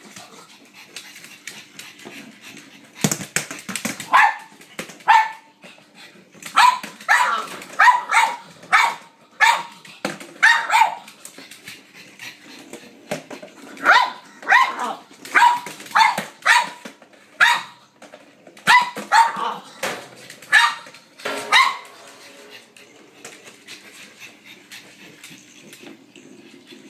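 Pug barking in a long run of short, sharp barks, several a second at times, that stop a few seconds before the end.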